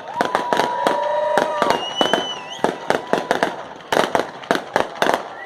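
Fireworks display: a rapid, irregular series of sharp bangs and crackles, with long held high tones over them in the first couple of seconds.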